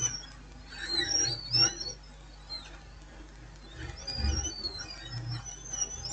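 Small birds chirping: quick, wavering high twitters in short bursts with pauses between them.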